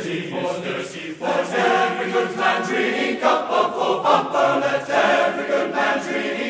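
Background music: a choir singing a sea shanty, with sustained sung lines and no break.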